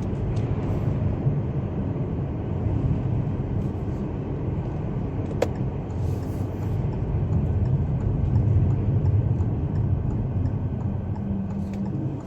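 Steady low rumble of a car's tyres and wind on the body, heard inside the cabin while driving in a snowstorm, with one short click about five and a half seconds in.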